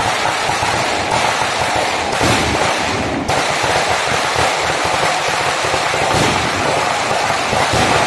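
Fireworks going off in a dense, continuous crackle and hiss.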